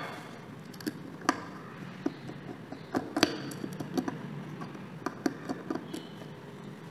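Small screwdriver working the screws that hold a hard disk drive's spindle motor in the metal base, with light irregular clicks and ticks of metal on metal.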